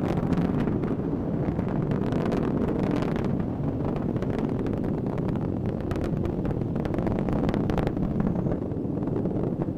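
Delta IV rocket climbing under its RS-68 main engine and strap-on solid rocket motors: a steady deep rumble with irregular crackling through it.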